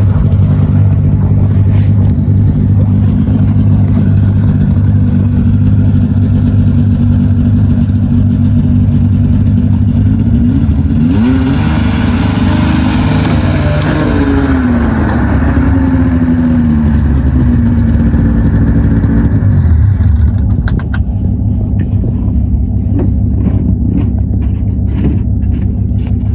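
A motor vehicle's engine running loudly and steadily, with its pitch gliding up and then back down about halfway through.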